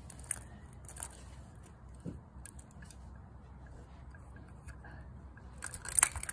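Small plastic clicks and clacks as a toy garbage truck's arm, carry can and toy bins are handled: a few single taps, then a louder quick clatter near the end.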